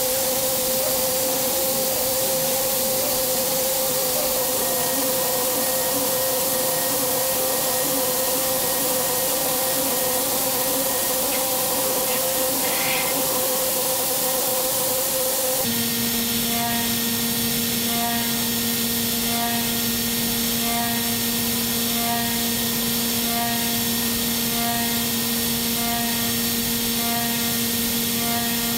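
DMG 5-axis machining centre milling an aluminium cylinder head: a steady spindle whine over the hiss of cutting and coolant. About halfway through the whine drops to a lower pitch and a soft, regular pulse of about one beat a second sets in.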